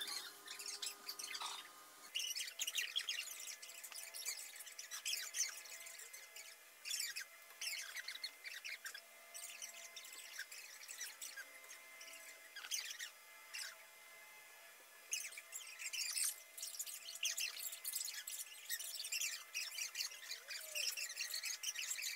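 Rubber unicycle tyres squeaking against a polished hall floor: many short, irregular high-pitched squeaks and chirps as the riders pivot and turn. A faint steady hum sits underneath.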